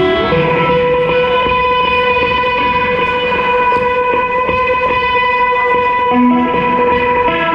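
Live band playing: an electric guitar holds one long note over the drums.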